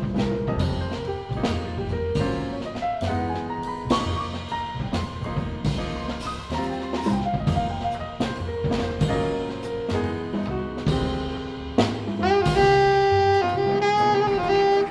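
Jazz combo playing: a Steinway grand piano leads over walking upright bass and drum kit with regular cymbal strokes. About three-quarters of the way through, the alto saxophone comes in with long held notes.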